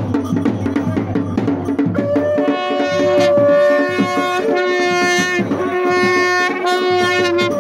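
Live folk music: drums beating steadily, joined about two seconds in by a wind instrument playing long, held notes over the beat.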